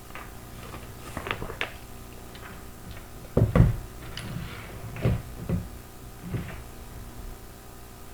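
Handling noise from a revolver and its leather holster: a series of scattered clicks and knocks, the loudest a pair of heavy thumps about three and a half seconds in.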